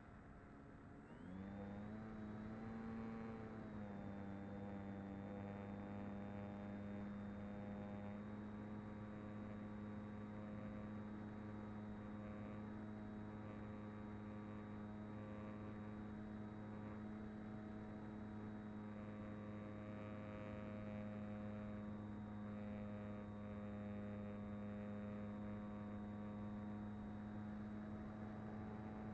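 Mini Talon's electric brushless motor and pusher propeller throttling up about a second in, with a brief rise in pitch, then running at a steady hum with a thin high whine.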